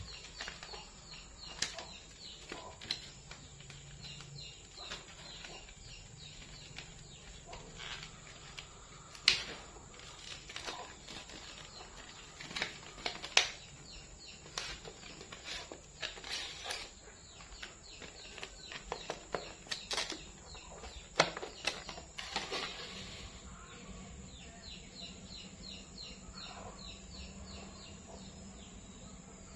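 Stiff clear plastic blister packaging crinkling and crackling as it is opened, with the paper instruction sheet and the plastic trimmer head handled; scattered rustles, with three sharp louder plastic clicks.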